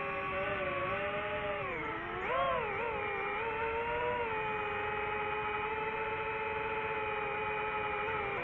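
DJI FPV drone's motors and propellers whining with a steady pitch. The whine dips and wobbles briefly about two seconds in, then holds level.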